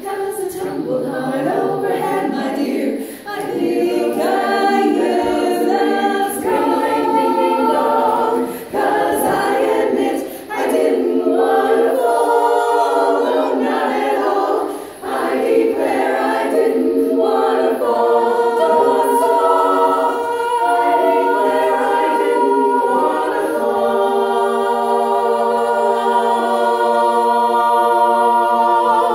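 Women's a cappella chorus singing an up-tempo song in harmony, with brief breaks between phrases, finishing on a long held chord over the last several seconds.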